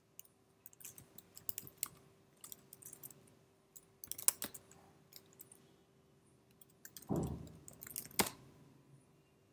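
Computer keyboard keystrokes clicking in short irregular bursts as a terminal command is typed, deleted and retyped. There is a duller, louder thump about seven seconds in, and a faint steady hum underneath.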